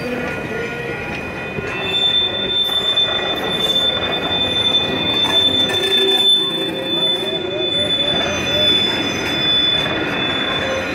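Passenger cars of a slow-moving train rolling past close by, their steel wheels squealing against the rails. The steady high-pitched squeal sets in about two seconds in and holds until near the end, over the rumble of the rolling cars.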